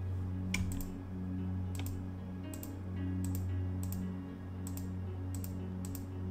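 Computer mouse and keyboard clicking irregularly, often in quick pairs, while vertices are selected and moved in a 3D modelling program, over soft background music with a low, steady drone.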